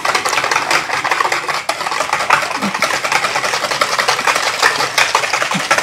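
Wire balloon whisk beating thick, creamy cheesecake filling by hand in a bowl: a fast, steady run of clicks and scrapes as the wires hit the side of the bowl.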